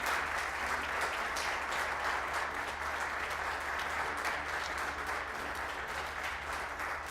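Audience applauding steadily, tapering slightly near the end.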